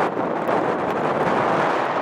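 Airbus A320-family airliner's jet engines in reverse thrust during the landing rollout on a flooded runway, a steady rushing noise as the thrust throws up spray.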